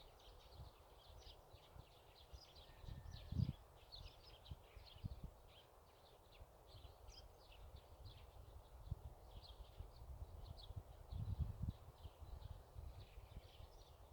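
Faint chorus of small birds chirping: many short, high chirps throughout, with a couple of low rumbles a few seconds in and again near the end.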